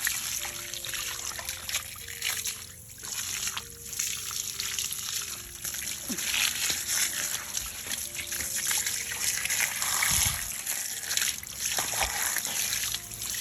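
Water trickling and splashing steadily, with a soft run of steady notes beneath it.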